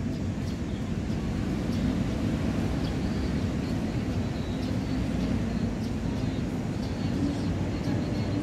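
Steady low outdoor rumble with a faint droning hum, holding even throughout.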